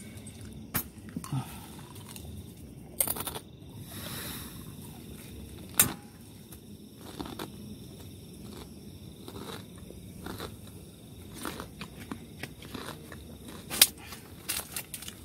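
Camping gear being handled on a tent's plastic groundsheet: scattered clicks, knocks and rustles, with sharper knocks about six seconds in and again near the end.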